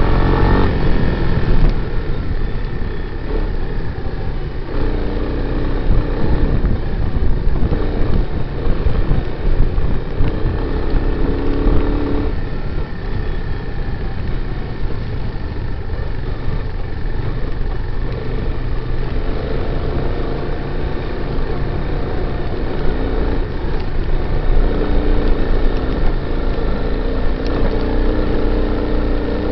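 Honda Big Red 250ES's single-cylinder four-stroke engine running under way, its pitch changing every few seconds with throttle and gear changes, along with a smaller quad's engine nearby and low wind rumble.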